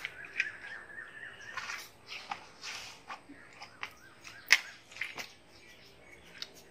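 Two people biting and slurping fresh watermelon slices: a run of sharp bites and sucking slurps, the loudest snap about four and a half seconds in. A bird calls in the background during the first second and a half.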